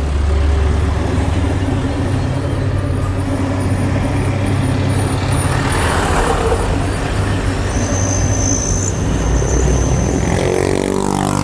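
Heavy diesel engine of a Komatsu excavator running steadily at work, a low continuous drone, with a short hiss about halfway and a change in engine pitch near the end.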